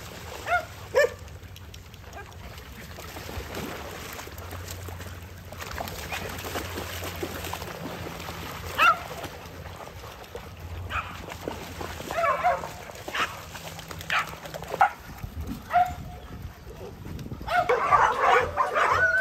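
A pack of dogs yipping and barking in excitement, scattered single calls at first, then many dogs barking together near the end as they rush into the water after a ball.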